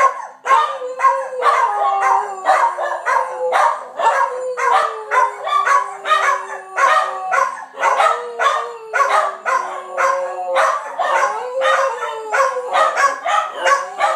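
Several dogs howling together, with long howls that slide down in pitch and overlap, over rapid, repeated barks and yips.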